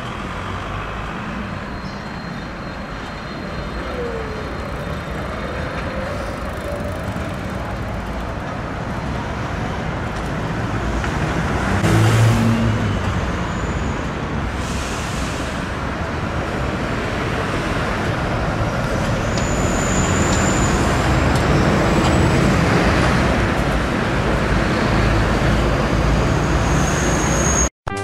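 A rail vehicle running, a steady rumble that slowly grows louder, with a few brief high-pitched squeals. It cuts off abruptly near the end.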